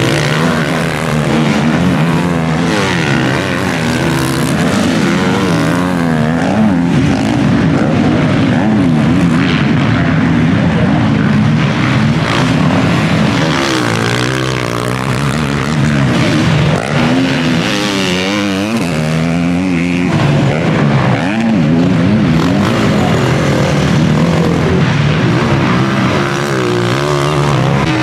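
Several motocross bikes racing through a dirt corner, their engines revving up and down again and again as the riders work the throttle, several at once.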